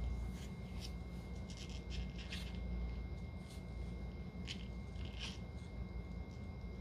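Soft scattered rasps and rustles of a mother cat licking her newborn kitten and shifting on the plastic floor of her cubby, over a low steady hum.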